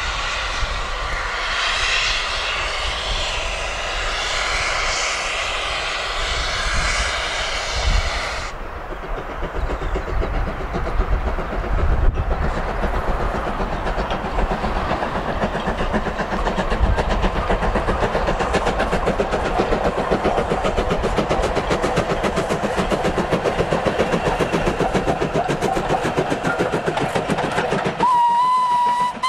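LNER B12 4-6-0 steam locomotive No. 8572 hauling a train of carriages past, its exhaust chuffing and the carriage wheels clacking over the rail joints, the rhythm growing busier as the train comes by. A high, wavering tone fills the first eight seconds or so, and a whistle sounds near the end.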